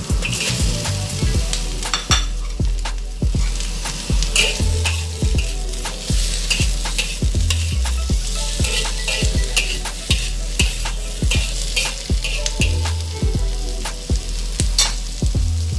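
Celery, carrots and black fungus sizzling in hot oil in a wok while being stirred and tossed, with a steady frying hiss and a quick clatter of clicks and scrapes against the wok several times a second.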